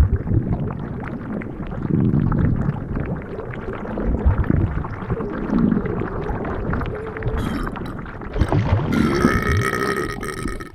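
Digestion sound effects of a full belly: low, churning stomach gurgling and sloshing, ending in a long burp near the end.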